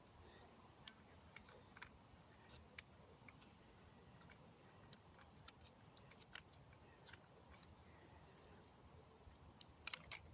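Near silence, with faint, irregular clicks and light taps scattered through, a few close together near the end.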